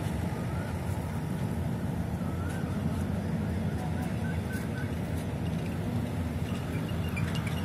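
Steady low rumble of outdoor site noise, with a few faint bird chirps.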